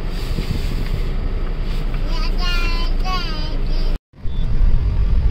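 Steady low rumble of a car's engine and cabin, heard from inside the car, with a soft voice briefly about two seconds in. The sound drops out for an instant about four seconds in and comes back louder.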